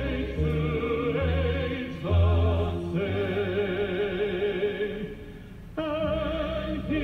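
Operatic classical music: a wavering, vibrato-laden melody over low held bass notes, dipping quieter for a moment about five seconds in.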